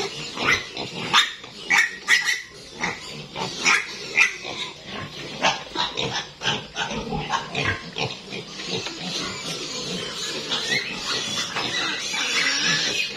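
Piglets squealing and grunting as they are caught and held by hand for a dewormer injection. Short, sharp squeals come in quick succession, giving way to steadier squealing from about eight seconds in.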